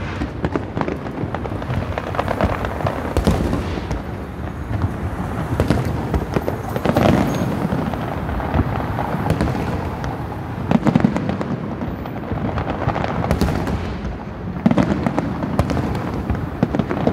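Aerial fireworks display: a continuous barrage of bangs and crackling bursts, with the loudest booms landing every few seconds.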